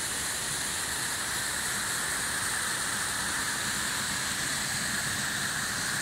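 Small mountain waterfall and its stream cascading over boulders: a steady rushing of water.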